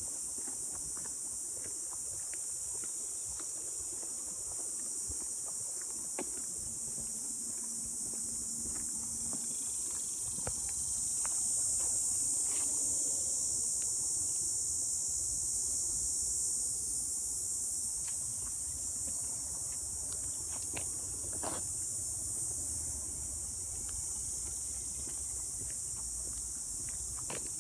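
A steady, high-pitched chorus of insects, swelling a little louder from about eleven seconds in for several seconds, with a few faint clicks underneath.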